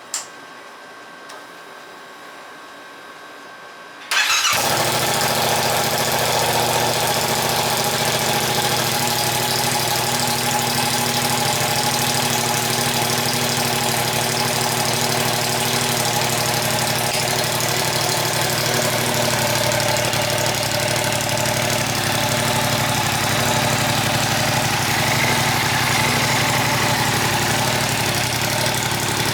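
Yamaha R7's 689 cc parallel-twin, breathing through a Spark aftermarket exhaust with its silencer fitted, starts about four seconds in and settles into a steady idle, pretty loud.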